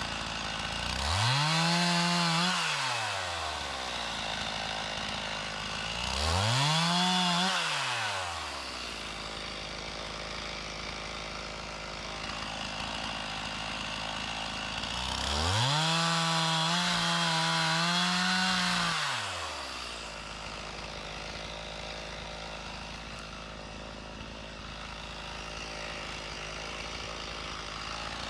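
Stihl MS391 two-stroke chainsaw idling and revved up three times. Each time the pitch climbs, holds and falls back to idle, and the third rev is held for about four seconds.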